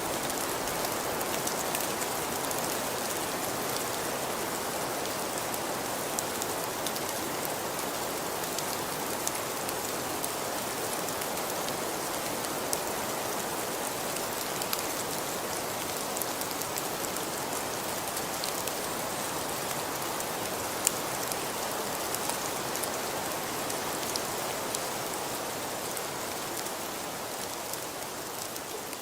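Steady rain falling, a dense even hiss with many scattered individual drop ticks, easing off slightly near the end.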